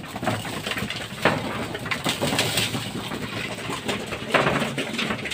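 Flock of racing pigeons feeding at a wooden grain trough: a scatter of pecking clicks and scuffling, with wing flaps and pigeons cooing.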